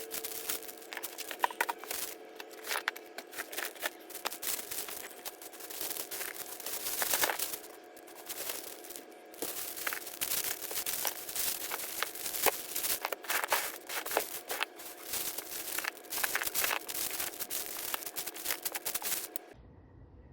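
Dense crinkling and scratching from hands working with materials, full of small clicks, over a faint steady hum; it cuts off abruptly near the end.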